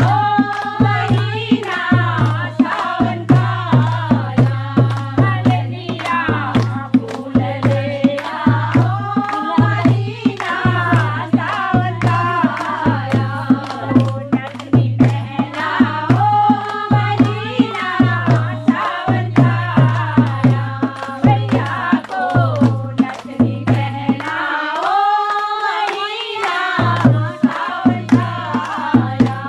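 Group of women singing a Hindu devotional bhajan (kirtan) to the steady beat of a dholak, with hand claps along with the rhythm. The drum drops out for a couple of seconds near the end while the singing carries on.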